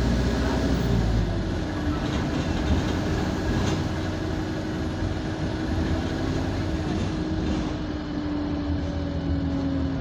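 Alexander Dennis Enviro200 single-deck bus heard from inside the passenger saloon: its Euro 6 drivetrain running with a steady tone that slowly falls in pitch, over a low rumble that eases about a second in. A few short rattles from the bus body come through.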